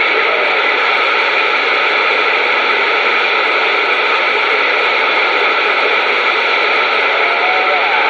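CB radio receiver hissing with steady static through its speaker on an open channel, no station coming through clearly. Near the end a faint warbling tone wavers in the hiss.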